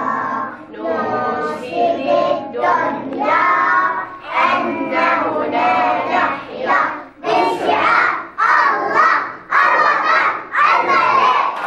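A class of young children singing a song together in unison.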